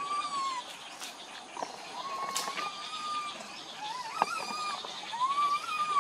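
Infant long-tailed macaque giving about four drawn-out, whistle-like coo calls, each holding a steady pitch before dropping off at the end. This is the crying of a young monkey separated from its group.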